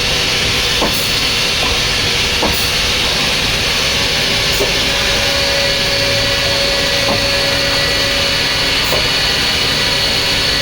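Hirzt F10 CNC drilling and boring machine running: a loud, steady whirring hiss with a few short knocks, and a steady tone that rises out of it for a few seconds in the middle.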